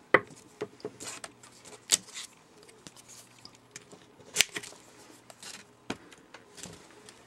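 Small clicks, taps and scrapes of nail stamping: a plastic card scraped across polish on a metal stamping plate and a silicone stamper pressed onto the plate. A few sharper clicks stand out, about a quarter second in, near two seconds and near four and a half seconds.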